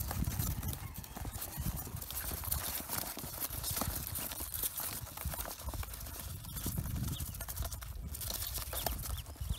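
Pekin ducklings scrabbling against each other and the cardboard of their box: a dense patter of small clicks and taps over a low rumble.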